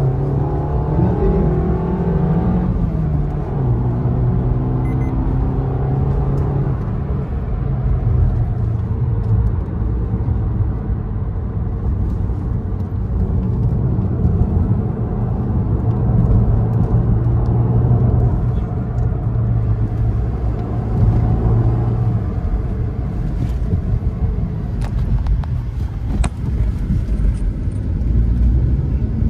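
Maruti Suzuki Ignis engine and road noise heard from inside the cabin as the hatchback is driven hard in traffic. The engine note rises and falls with the throttle, and there are a few light clicks near the end.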